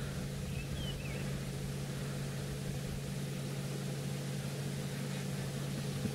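Steady low mechanical hum, like an engine idling, holding a few constant low tones. A short, wavering high bird chirp comes about a second in.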